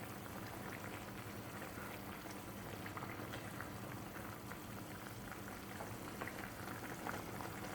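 Chicken masala gravy simmering in a pot on a medium flame, bubbling with many small pops, over a low steady hum.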